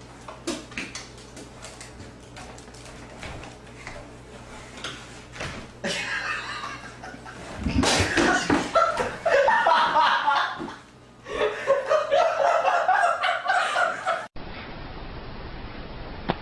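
People laughing in bursts, after several seconds of scattered clicks and knocks. About two seconds from the end the sound cuts abruptly to a quieter, steady background.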